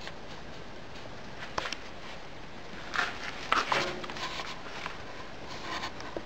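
A few soft footsteps and rustling knocks from handling a camera, scattered over a steady low background hiss.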